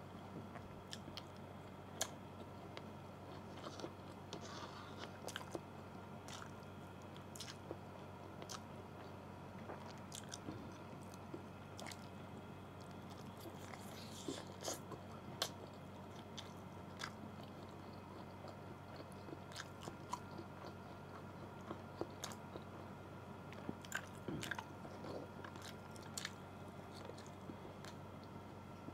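Close-miked eating sounds: a person biting and chewing adobo chicken drumstick and rice, with many short, sharp clicks and smacks of mouth and fingers scattered through.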